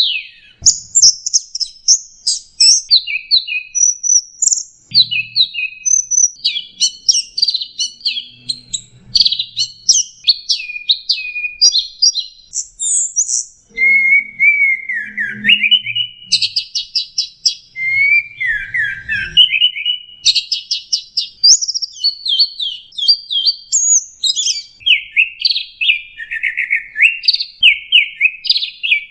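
Orange-headed thrush singing a long, varied song of quick, high whistled phrases, one after another with hardly a pause, some sliding downward in pitch.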